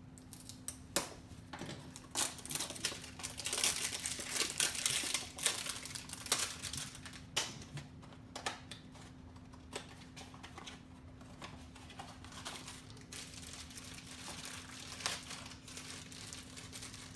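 A mystery-mini blind box being opened by hand with a small knife: irregular crinkling and tearing of packaging with scattered sharp clicks and scrapes, busiest in the first half. A faint steady hum sits underneath.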